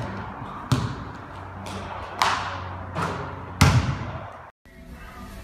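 A basketball bouncing hard on a wooden floor about five times, each bounce a sharp thud with a ringing tail of echo. After a sudden cut about four and a half seconds in, faint music starts.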